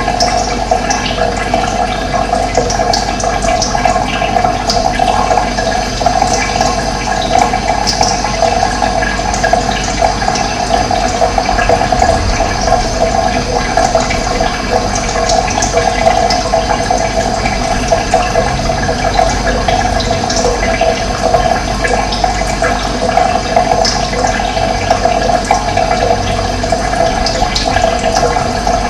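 Running water flowing steadily, with short high bird chirps scattered throughout.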